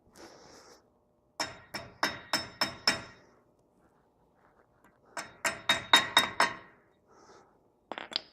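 Two quick runs of about six hammer taps on steel, roughly three a second, each with a short metallic ring, as a cotter pin is driven through the axle nut's retainer cap at the wheel hub. A couple of lighter clicks follow near the end.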